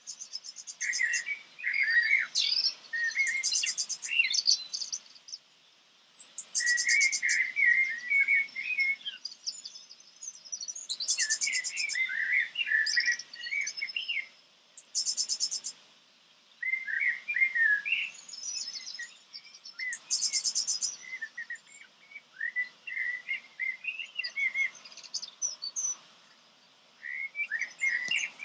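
A songbird singing in repeated phrases of a few seconds each, made of quick chirps and fast high trills, with short pauses between phrases.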